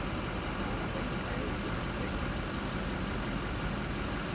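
A truck engine running steadily at low speed or idle.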